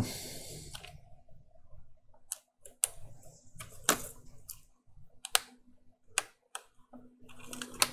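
A short hiss at the start, then irregular sharp clicks, about nine spread over several seconds, over a faint steady hum.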